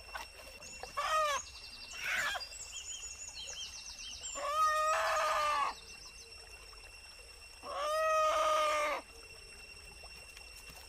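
Chicken squawking loudly: two short calls, then two long drawn-out calls of over a second each.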